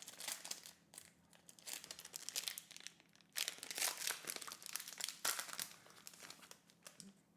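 Foil Pokémon booster pack wrapper crinkling and tearing as it is pulled open by hand, in irregular crackles with louder rips about three and a half and five seconds in.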